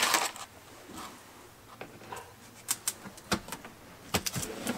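Scattered light clicks and taps as self-stick vinyl floor tiles are handled and set down on the floor, with several sharp ticks close together in the second half.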